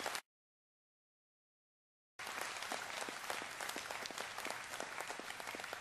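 Audience applauding, a dense patter of many hands clapping. The sound cuts out completely for about two seconds shortly after the start, then the applause comes back.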